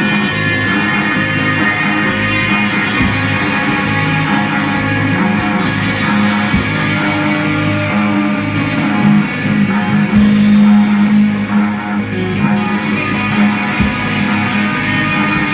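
Live psychedelic rock band playing, with electric guitar, bass and drums.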